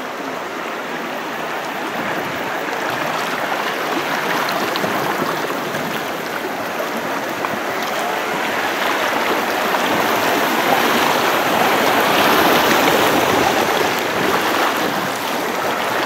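Shallow river rushing over rocks in small rapids, a steady roar of moving water that grows louder through the middle as the bamboo raft runs through white water, then eases a little near the end.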